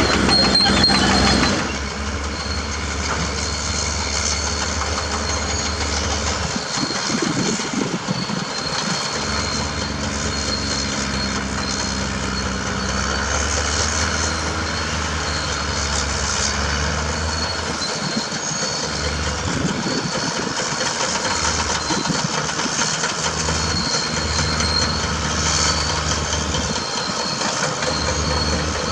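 Caterpillar D6R bulldozer's diesel engine running steadily, louder for the first second or two.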